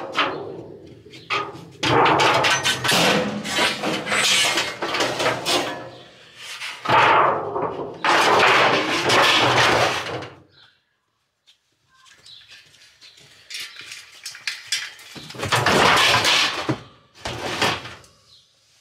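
Scrap metal being pulled out of a van's load: long bursts of clattering and scraping as a corrugated metal sheet, wire and racks are dragged over the pile. There is a short quiet gap about halfway through.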